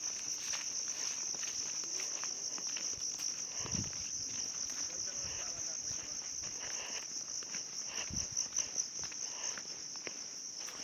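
Steady, high-pitched chorus of insects, crickets or cicadas, droning without a break. A couple of low thumps, about four and eight seconds in.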